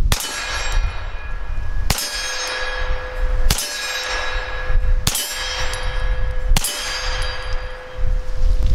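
Five shots from a Hi-Point 9mm blowback carbine, fired at a steady pace about a second and a half apart, each followed by a ringing metallic clang that carries on between shots.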